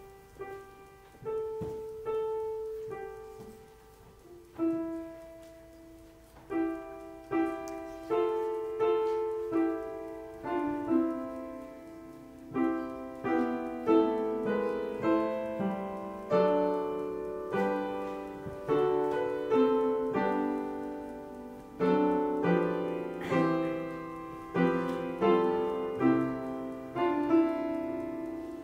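Solo piano playing a slow, reflective piece: a few sparse single notes at first, then fuller chords struck about once a second, each ringing and fading.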